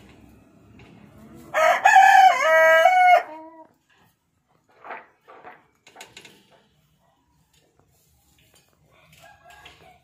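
A rooster crows once, about a second and a half in: a loud call of nearly two seconds whose pitch steps up and down before it drops off. A few short hen clucks follow a couple of seconds later.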